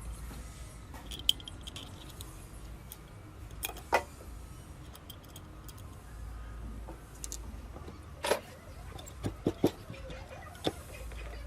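Scattered sharp clicks and knocks from tools and scooter parts being handled, including three in quick succession near the end.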